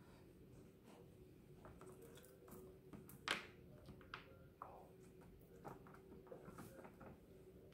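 Near silence: a faint steady room hum with a few soft clicks and taps from fingers handling chicken wings and bones on a plate. The loudest tap comes about three seconds in.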